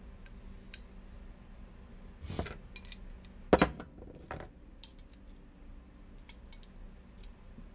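Metal hand tools and small parts clinking and rattling as they are handled and set down on a workbench: a short scraping rattle a couple of seconds in, a loud clank about a second later, then a few lighter clicks.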